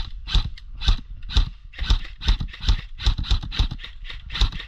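Airsoft rifle firing single shots in quick succession, about a dozen sharp shots at two to three a second.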